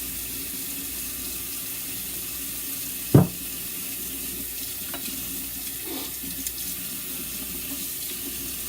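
Kitchen faucet running steadily into a sink during hand dishwashing, with a sharp clink of dishware about three seconds in and a couple of lighter knocks later.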